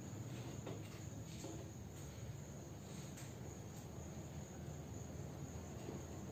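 Quiet room tone: a steady low hum and a faint, steady high-pitched whine, with a few soft taps as a plastic protractor is shifted against a chalkboard.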